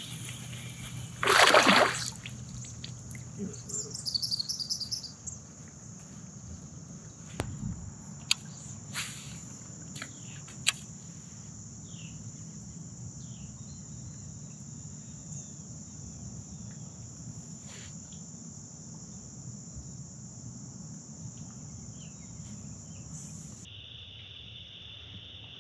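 Insects droning steadily at a high pitch, with a short loud splash in the water about a second and a half in and a few faint clicks later.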